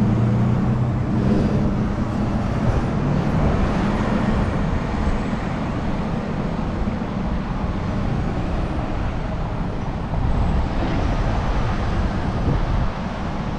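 City street traffic passing close by: the low hum of a heavy vehicle's engine over the first few seconds, then the steady sound of cars and trucks driving past, rising again about ten seconds in.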